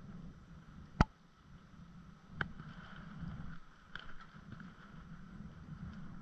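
Water lapping against a floating dock, with one sharp click about a second in and two softer clicks later.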